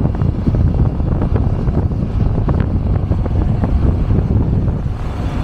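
Heavy wind buffeting on the microphone while riding a motorcycle, with the bike's engine and road noise underneath as a steady low rumble.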